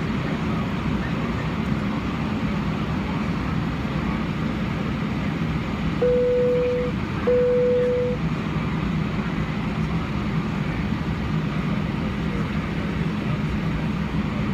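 Steady engine and cabin rumble inside an Airbus A319 airliner taxiing. About six seconds in, two identical single-pitch cabin chimes sound, each just under a second long and fading away.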